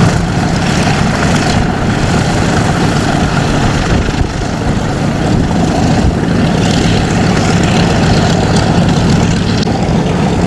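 Propeller-driven aircraft engine running steadily: a loud, even, low hum with a rough noisy edge.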